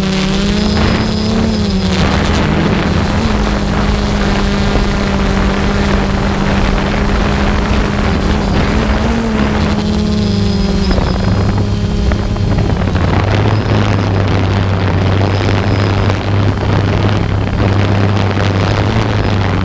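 Steady propeller-and-motor drone of a low-flying camera aircraft, its pitch wavering slightly, with wind noise on the microphone. About two-thirds of the way through, a deeper steady hum comes to the fore.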